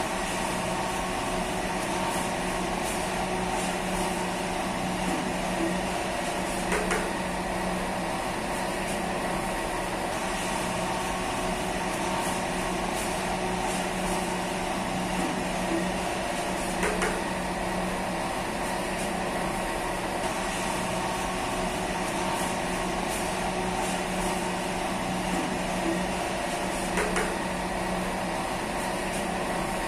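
Steady electric machine hum of bakery equipment, with a short sharp tick repeating about every ten seconds.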